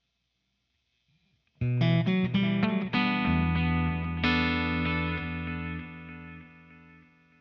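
Electric guitar played through a GFI System Orca delay pedal. After a short silence, a quick run of notes leads into a note that rings out, then a second one that fades slowly with the delay's repeats trailing off.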